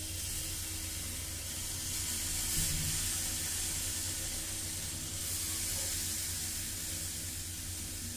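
Batter and oil sizzling steadily on a hot non-stick tawa, an even hiss with a low hum underneath.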